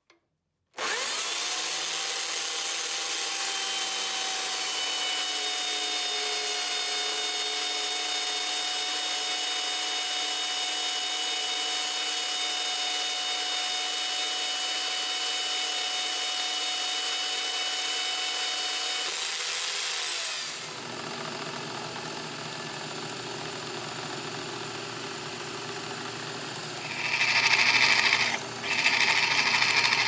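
A portable metal-cutting band saw runs steadily, cutting through quarter-inch steel flat bar, and stops about twenty seconds in. A drill press then runs, and from about 27 s its bit drills into the steel bar in loud, grinding stretches.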